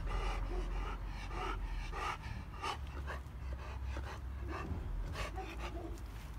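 Chow chow panting, a quick run of short breaths, about two to three a second.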